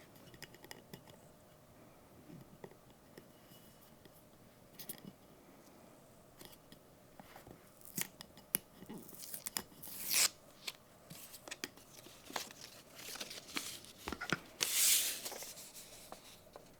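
Packaging being handled in an unboxing: scattered light clicks and rustles, with a louder short burst of noise about ten seconds in and a longer one about fifteen seconds in.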